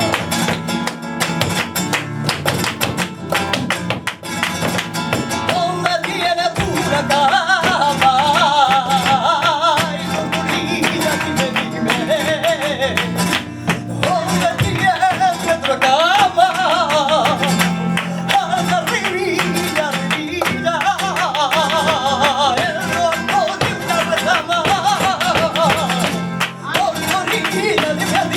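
Live flamenco fandango: acoustic flamenco guitar with a wavering melodic line above it, and sharp percussive taps throughout.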